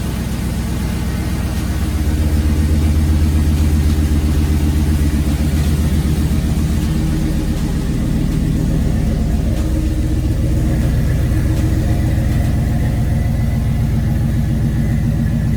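Car engine idling steadily, a continuous low hum; a faint high steady tone joins about ten seconds in.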